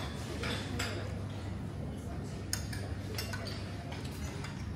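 Cutlery and china clinking now and then in a dining room, over a steady low hum and faint background chatter.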